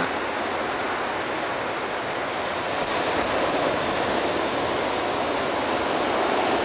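Ocean surf breaking and washing up a sandy beach: a steady rushing noise that swells a little about halfway through.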